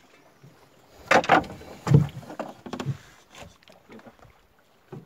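Knocks and splashes in and around a small fishing boat on the water. The loudest come as two sharp knocks about a second in and a deep thump about a second later, followed by a few smaller knocks.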